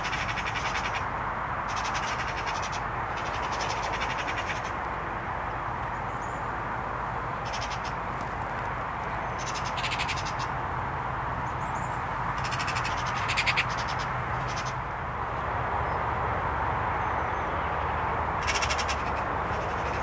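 Eurasian magpies chattering: short bursts of rapid rattling calls come every few seconds, the loudest a little past the middle. They sound over a steady rushing background. This is the harsh chatter of birds agitated by a decoy magpie.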